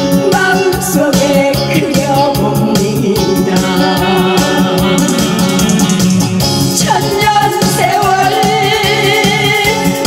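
Korean trot song sung by a woman into a handheld microphone over a recorded backing track with a steady drum beat.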